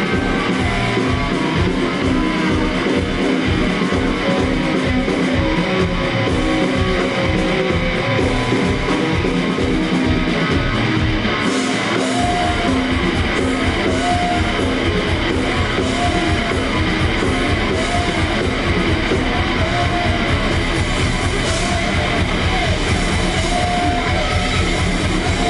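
Live rock band playing loudly: electric guitar over drum kit and bass with a steady low beat, which gets busier about halfway through.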